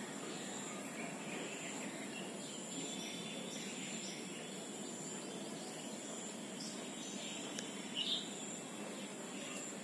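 Outdoor ambience: a steady background hiss with one continuous high-pitched insect buzz. A short high chirp comes about eight seconds in.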